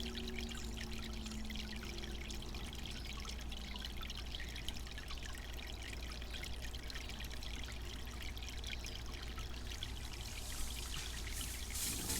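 Garden water fountain trickling and splashing steadily over a low, even hum, growing a little brighter and louder near the end.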